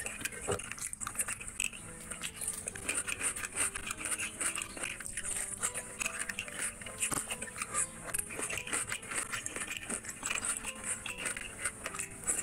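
Close-miked wet chewing and lip smacking of someone eating curry by hand, a dense run of short smacks and clicks. Soft background music with a stepping melody plays underneath.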